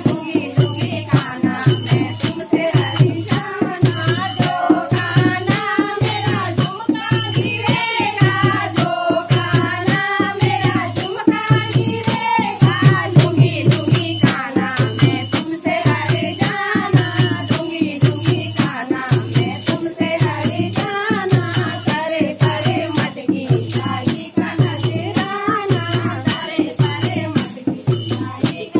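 Devotional song to Krishna (a Kanha song): a voice singing a wavering melody over a steady, even beat of drum and jingling shaker, about two beats a second.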